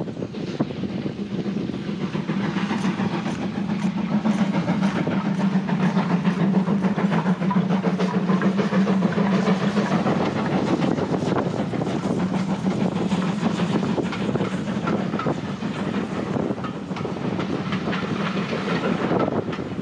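Steam-hauled passenger train running past: steady rumble with the clickety-clack of carriage wheels over the rail joints, loudest in the middle as the train draws level.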